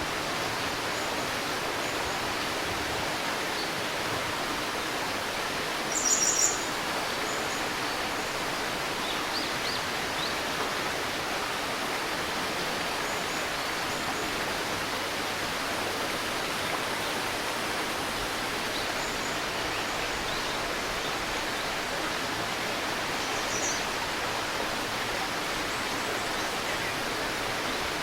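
Shallow river babbling steadily, with small birds chirping now and then. The loudest is a brief, high chirp about six seconds in, and another comes about three quarters of the way through.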